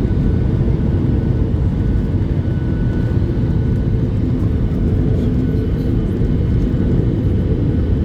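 Airliner cabin noise: the steady low rush of the jet engines and airflow heard from inside the passenger cabin, with a faint steady hum above it.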